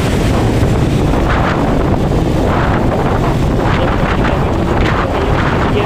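Wind rushing over the microphone of a moving Benelli Imperiale 400 motorcycle, gusting now and then, with the bike's single-cylinder engine running steadily underneath.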